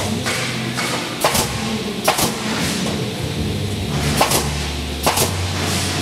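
Pneumatic nail guns of a Terminailer automated sub-component nailing machine firing into lumber, several sharp shots roughly a second apart, over the machine's steady low hum.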